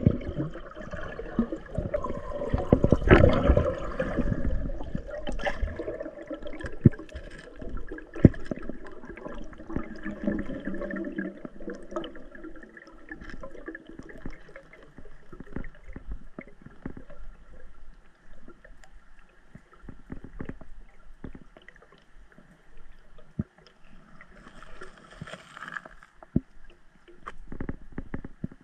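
Water gurgling and sloshing close to the microphone, with many small scattered clicks and knocks and a louder rush of water about three seconds in.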